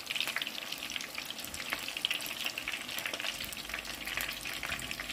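Batter-coated shrimp deep-frying in hot oil in a pan: a steady sizzle with a dense crackle of small pops.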